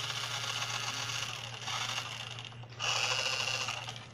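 Electric motor and gearbox of a toy RC Porsche Cayenne whirring as its wheels spin freely in the air, running in reverse. It runs, stops briefly about two and a half seconds in, and starts again.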